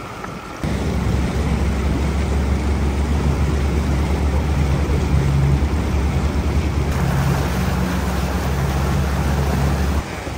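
Outboard motor of an inflatable rescue boat running steadily under way, a loud low drone with water and wind noise over it. It comes in abruptly about half a second in and cuts off just before the end.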